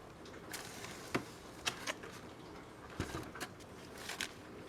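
Grocery packaging being handled and put down: scattered light clicks, taps and rustles.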